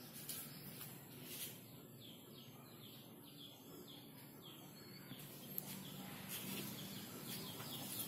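Birds chirping: a run of short, high chirps that each fall in pitch, about three a second, over faint steady outdoor background noise.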